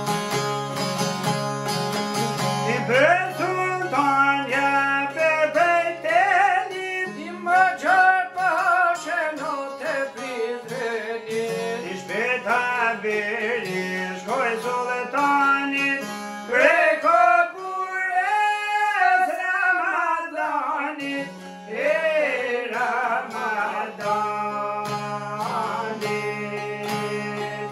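Two Albanian long-necked lutes, a çifteli and a larger bowl-backed lute, plucked together over a steady low drone. From about three seconds in, a man sings a folk song over them in long, bending, ornamented phrases.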